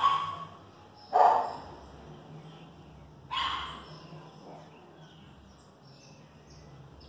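A dog barking: three short barks in the first four seconds, the second the loudest.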